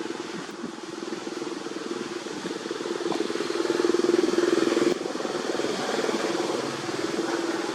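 An engine running steadily with a fast, even pulse. It grows louder to a peak and drops suddenly about five seconds in.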